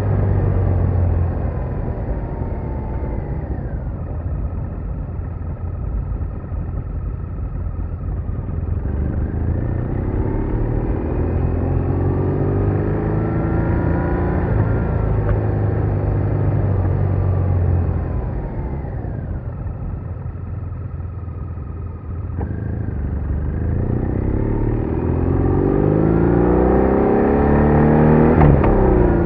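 BMW R1200R boxer-twin motorcycle engine running on the road: its pitch drops twice as it eases off, and climbs twice as it pulls hard, about a third of the way in and again toward the end, over a steady low rumble.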